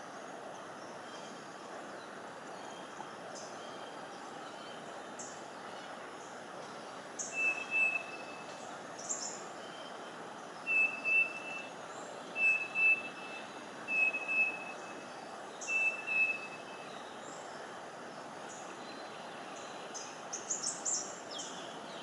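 Racket-tailed drongo calling: a series of short, level whistled notes, each about half a second long and one to two seconds apart, mixed with scattered sharp high chips and a quick run of them near the end. A steady background rumble runs underneath.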